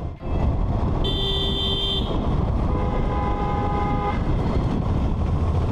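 Two vehicle horn honks, each about a second long and at different pitches, over steady low road noise.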